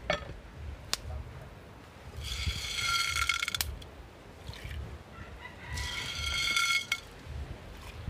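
A rooster crowing twice, each crow a little over a second long: the first about two seconds in, the second around six seconds. Two sharp clicks come near the start.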